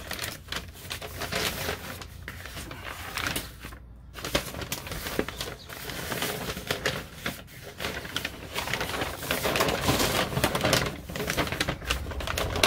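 Brown kraft wrapping paper rustling and crinkling as it is pulled open and torn by hand, in quick crackly bursts that are loudest about ten seconds in.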